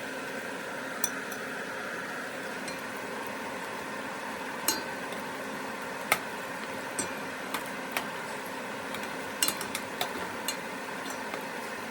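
Kubba, rice-and-potato croquettes dipped in egg, deep-frying in a big pot of hot vegetable oil with a steady sizzle. About a dozen sharp clicks and clinks are scattered through it, the loudest about six seconds in.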